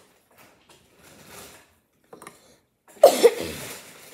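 A child coughing: two quick, loud coughs about three seconds in, after quieter rustling.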